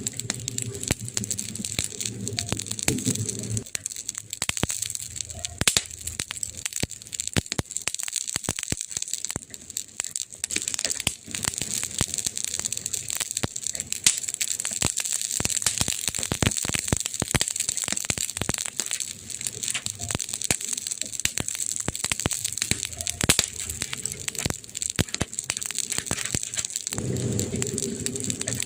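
Wood fire crackling, with many sharp snaps and pops over a steady hiss. A low rumble sits under it for the first few seconds and comes back near the end.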